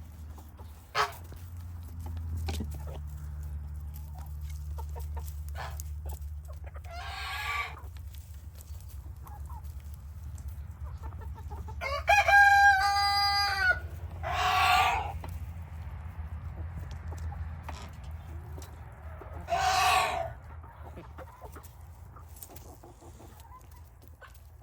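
A flock of chickens calling, with a rooster crowing once just after the middle and several loud, harsh squawks around it. A steady low hum runs underneath.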